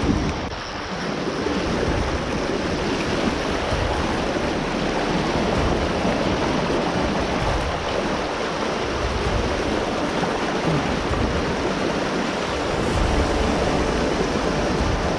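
Steady rush of a fast creek running over shallow rapids and riffles.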